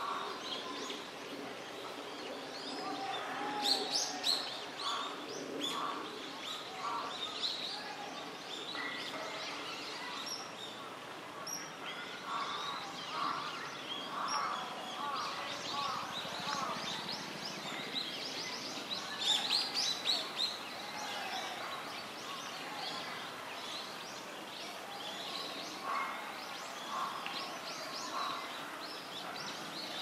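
Small birds chirping and calling on and off, short notes and quick high sweeps, over a steady outdoor hiss.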